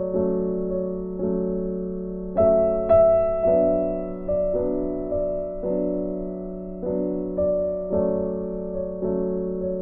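Background music: a slow, gentle piano or electric piano, chords struck about once a second and left to fade.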